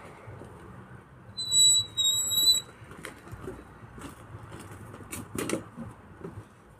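Wheelbarrow being wheeled off, its wheel giving a loud high-pitched squeal twice, about half a second each, then a few knocks and a clunk.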